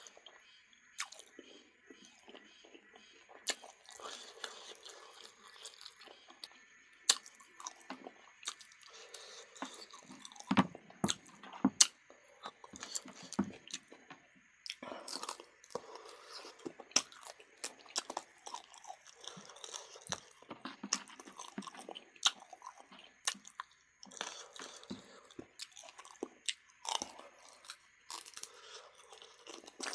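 Close-up chewing and biting of duck, with many irregular sharp crunches between softer wet chewing.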